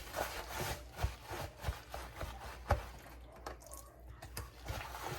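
Paper towel patting and rubbing raw catfish dry, a rustling scrape with soft irregular thuds as the fish is pressed against the board.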